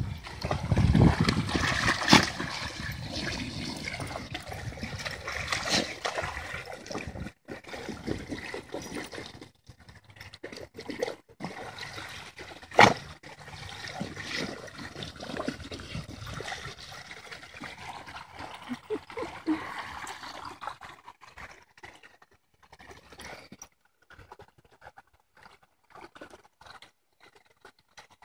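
Muddy water splashing, slurping and trickling as a Golden Pyrenees puppy noses and paws in a puddle fed by a garden hose. The sound is busiest over the first several seconds, with sharp splashes, and thins to faint, scattered splashes near the end.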